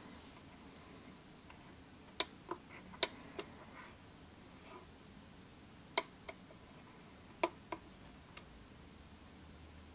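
Push buttons on a D30 digital valve positioner's keypad clicking as they are pressed, a handful of short sharp clicks, several in quick pairs.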